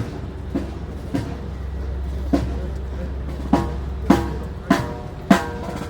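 Military band drums beating a steady march cadence, a sharp ringing stroke a little more than every half second with one beat skipped, over a low steady rumble.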